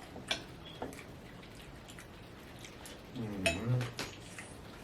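A spoon clinking against a bowl a few times while eating, with a short voiced 'mm' about three and a half seconds in.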